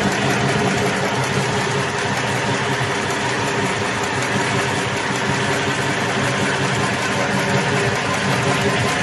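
Meatball-forming machine running: a steady mechanical hum that holds the same pitch throughout.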